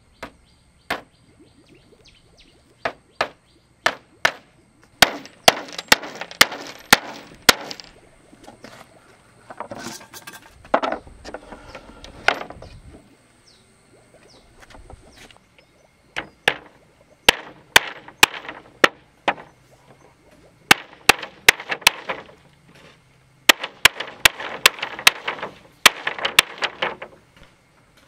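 Runs of sharp blows from a hand tool, several a second, broken by short pauses, with scraping and rustling between them.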